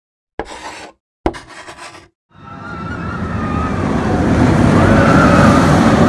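Intro sound effects: two short sharp hits that each cut off after under a second, then a rushing roar with a wavering whine on top that swells over about three seconds.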